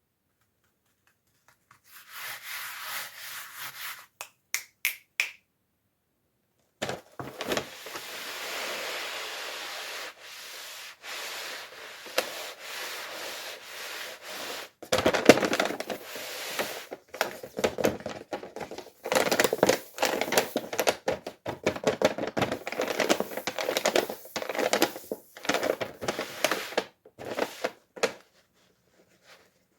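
Toy packaging being handled and opened: rubbing and scratching with many sharp clicks and knocks, broken by short silent gaps.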